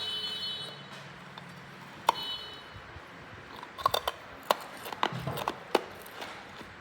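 Hard ice being bitten and crunched close to the microphone: sharp, separate cracks, one about two seconds in and a quick run of them in the second half.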